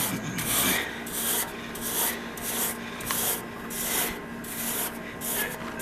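Brush scrubbing the condenser coil of a Hoshizaki ice machine in quick, even strokes, about two a second, loosening the dust and debris packed in the coil.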